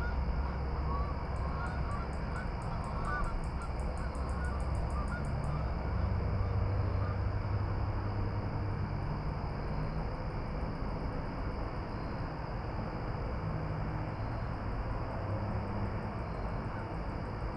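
Outdoor dusk ambience: a steady low rumble under a few distant honking bird calls in the first few seconds, and a rapid high-pitched ticking that comes and goes.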